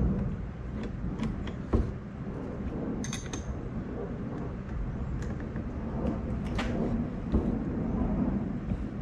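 Hand tools clicking and clinking on the steel top nut and shaft of an old shock absorber as it is worked loose, with one sharp knock about two seconds in and a bright metallic clink a little later. A steady low rumble sits underneath.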